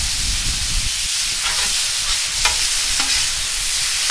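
Thin-sliced American Wagyu sirloin strips sizzling steadily on a Blackstone flat-top steel griddle, with a metal spatula scraping across the steel a few times as the meat is tossed.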